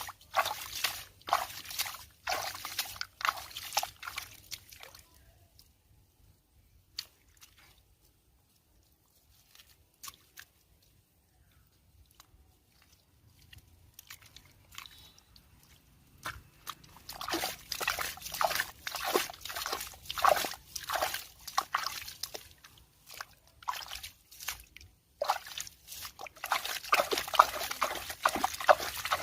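Water sloshing and splashing in quick, repeated strokes, stopping for about ten seconds in the middle and then starting again.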